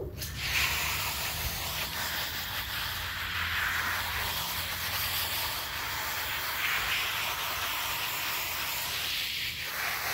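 Water spraying steadily from a garden hose's pistol-grip nozzle onto a shampooed dog's wet coat, a continuous hiss that briefly drops off near the end.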